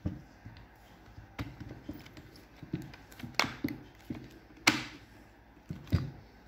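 Irregular knocks and clicks of the Milwaukee M18BPD drill's plastic housing halves being pressed and shifted together by hand. The halves will not seat properly; the owner suspects debris or melted plastic inside the housing.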